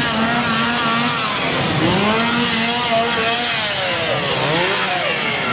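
Two-stroke chainsaw engine revving up and down several times, its pitch dipping and climbing again about two seconds in and once more near the end.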